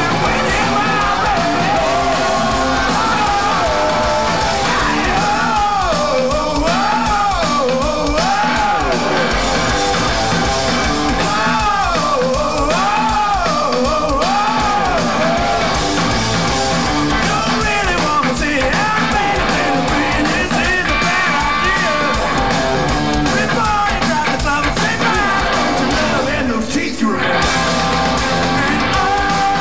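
Hard rock band playing live: guitars, drums and keyboards with yelled singing, with a short break in the music near the end.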